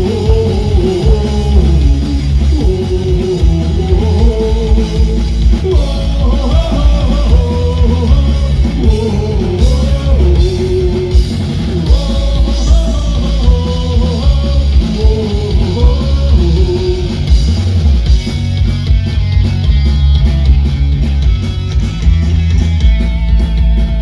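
Live rock band playing loud through a PA: electric guitars and a drum kit over a heavy bass, with a melody line on top that drops out about 17 seconds in.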